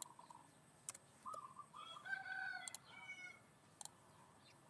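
Faint bird calls, like farmyard fowl: a short series of clucks about a second in, then a longer drawn-out call. A few sharp clicks are scattered through.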